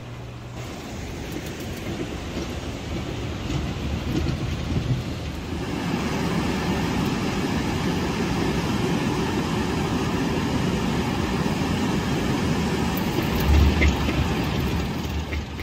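Roar of heavy surf breaking on the beach: a steady wash of noise that grows louder about five seconds in, with a brief low rumble near the end.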